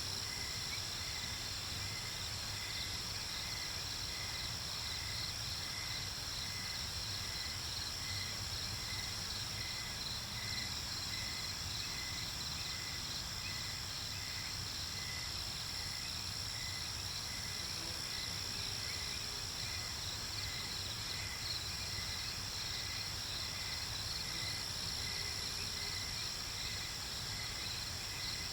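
Steady chorus of insects, likely crickets, with a chirp repeating evenly, less than a second apart, over a continuous high-pitched drone.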